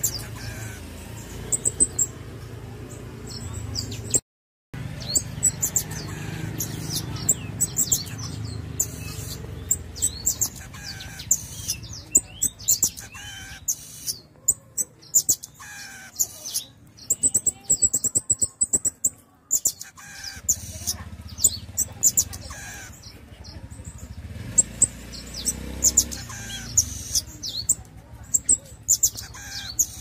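Pin-tailed parrot finch singing: a long run of very high, thin, quick notes, densest in the middle, over a low steady hum. The sound drops out completely for a moment about four seconds in.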